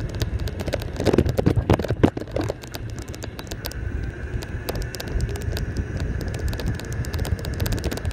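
Golf cart driving along a road: wind rumble on the microphone over rapid, irregular rattling clicks from the cart's body and canopy, with a faint steady whine.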